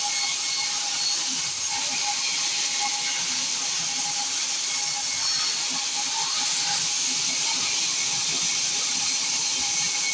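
Sawmill saw cutting through a large acacia log, a steady hissing noise with a faint constant whine and no pause.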